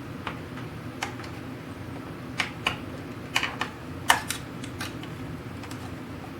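Irregular light clicks and taps from small hardware and hand tools being handled on the machinist chest, over a steady low hum.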